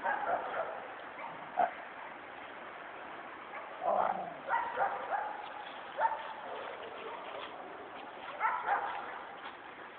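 Dogs at play giving short barks and yips in scattered clusters, several at once around the middle and a pair near the end.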